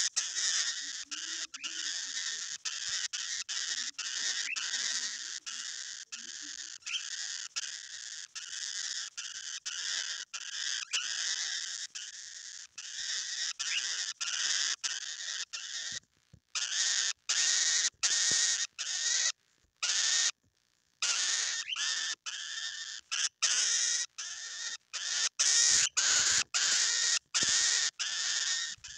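Cockatiel making its hunger call: a long run of high, harsh calls chopped into quick repeated pulses, a few a second, broken by short silences in the second half.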